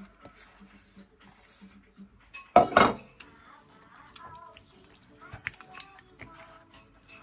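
Hands rubbing a thick spice marinade into raw chicken in a plastic bowl: soft wet squelches and small clicks, with one short loud knock about two and a half seconds in.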